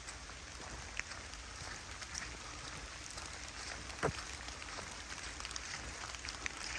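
Steady light rain pattering on leaves and the forest floor, with scattered close drops ticking and one sharper tick about four seconds in.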